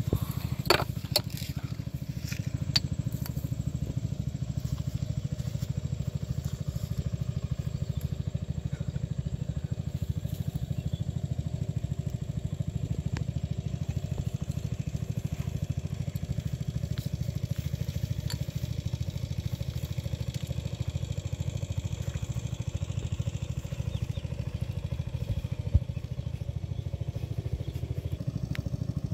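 A steady low drone of an engine running, unchanging throughout, with a few sharp clicks in the first three seconds.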